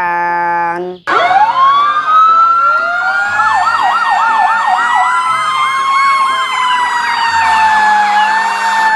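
Several fire engine sirens sounding at once. A wail rises about a second in and then slowly rises and falls, while a faster yelping warble cycles over it for a few seconds.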